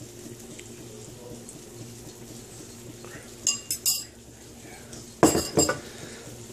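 A metal fork scraping and clinking against a ceramic mixing bowl, with a few sharp clinks about three and a half seconds in, then a louder clatter a little past five seconds as the bowl and fork are set down.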